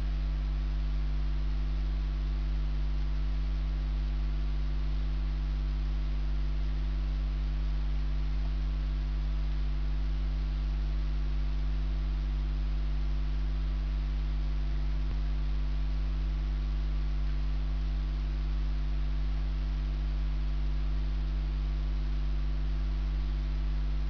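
Steady low electrical mains hum, with a few evenly spaced higher overtones over a faint hiss.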